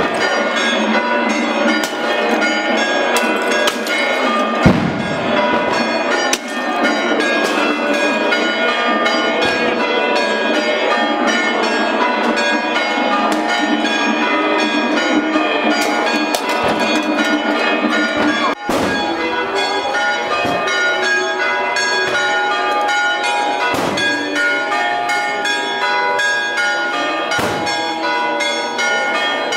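Church bells pealing without pause in a joyful clanging ring for the Resurrection. Sharp crashes of clay pots smashing on the stone paving break through every few seconds, the loudest about five seconds in.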